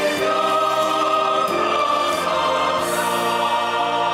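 Mixed church choir of men's and women's voices singing a hymn, holding long chords that move to new ones about a second and a half in and again near three seconds.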